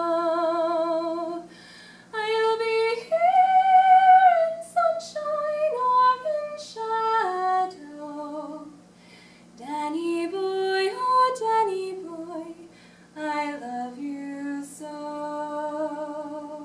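A woman singing unaccompanied, in phrases of long held notes with a light vibrato, separated by short pauses.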